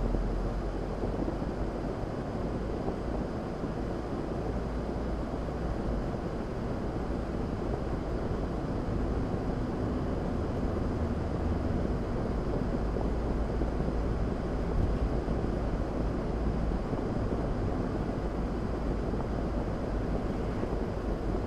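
A car driving on a wet road, heard through a dashcam: a steady low rumble of engine and tyre noise with some wind.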